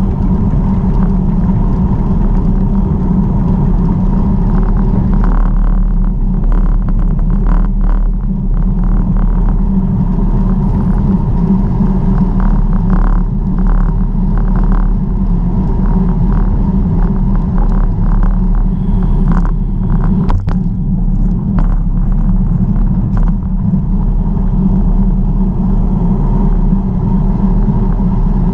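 Steady wind rumble on the microphone with tyre and road noise while riding a bicycle, with scattered light clicks through the middle.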